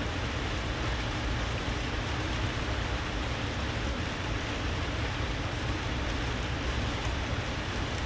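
Steady rain, an even hiss with a low rumble beneath it.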